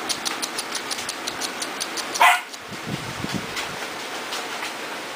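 A Pembroke Welsh Corgi puppy gives one short, sharp yip about two seconds in, over light rapid ticking in the first couple of seconds and a few soft knocks just after.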